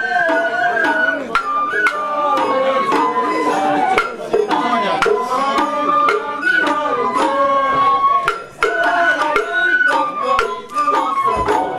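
Japanese festival float music (hayashi): bamboo flutes play a wavering melody over steady drum and gong strikes.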